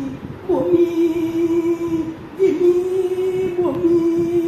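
A voice singing long held notes, three in a row, each dipping briefly at its start and then held steady.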